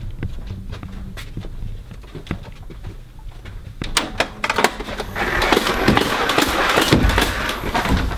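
Motorized Nerf blasters firing rapidly: after a few soft clicks, a dense rattle of shots starts about four seconds in and keeps going.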